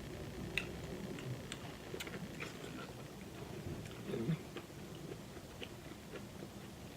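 Close-miked eating sounds: soft chewing with scattered small wet mouth clicks and smacks. A brief low murmur of the voice comes about four seconds in.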